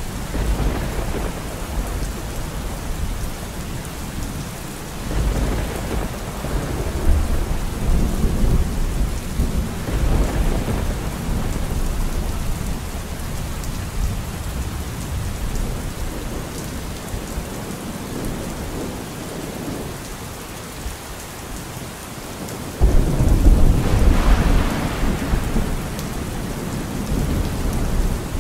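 Thunderstorm: steady rain with low thunder rumbling on and off, and a sudden loud thunderclap about three-quarters of the way through that rumbles away over a few seconds.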